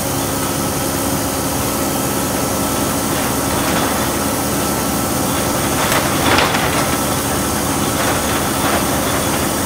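Volvo B6BLE single-deck bus's engine and drivetrain running steadily as the bus drives along, heard from inside the passenger saloon, with a steady whine under the engine note. About six seconds in there is a brief louder noise.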